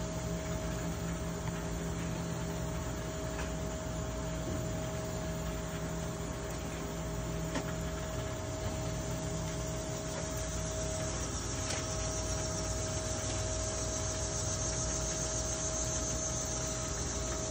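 Ribeye steaks sizzling on a very hot grill grate as they are laid on, the hiss growing stronger about halfway through, over a steady electrical hum. A few faint clicks come from the meat being handled on the grate.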